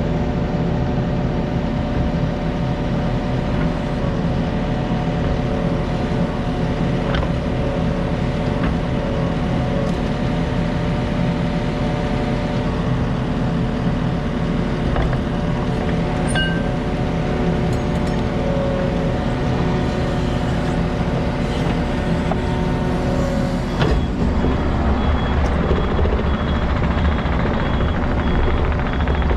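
Takeuchi compact track loader's diesel engine running steadily. Its backup alarm beeps during the last few seconds.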